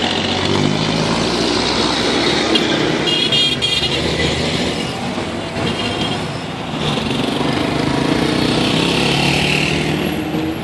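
Engine of a small vehicle running as it moves through city traffic, with other vehicles' engines around it. Horns sound briefly about three seconds in and again a couple of seconds later.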